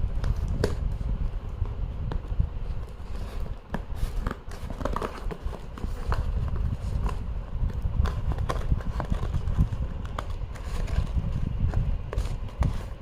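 A package being handled and opened up close to the microphone: scattered crackles, taps and scrapes of packaging over a low handling rumble.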